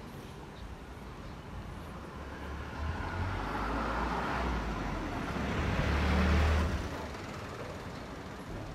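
A motor vehicle driving past on a street: its engine rumble and tyre noise grow louder over a few seconds, peak about six seconds in, then drop away quickly.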